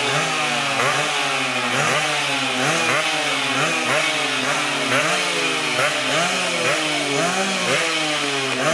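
Several racing engines revved over and over at once, each one's pitch climbing and dropping back about once a second, the revs overlapping into a continuous din.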